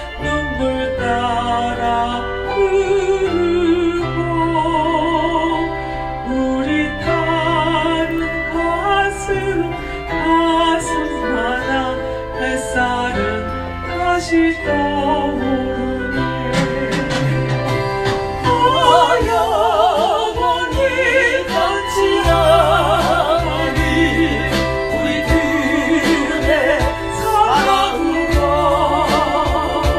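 Background song: women singing with strong vibrato over a sustained instrumental backing.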